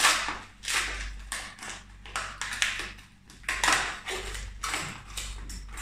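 Brown paper wrapping crinkling and tearing as a small package is unwrapped by hand, in a quick, uneven series of rustling bursts.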